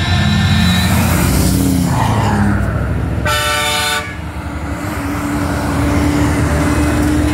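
Pickup and semi trucks passing on the road, engines and tyres running, with a short air-horn blast of under a second about three seconds in. A single steady low tone holds through the second half.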